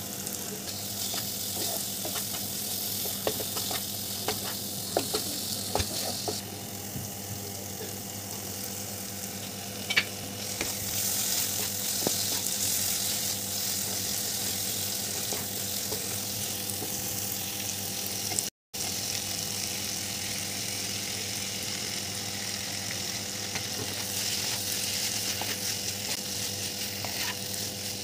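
Onion-tomato masala frying and sizzling in oil in a pan, stirred with a spatula that clicks and scrapes against the pan now and then. The sound drops out for a moment about two-thirds of the way through.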